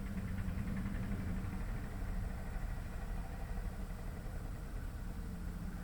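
A steady low engine hum, like a motor idling.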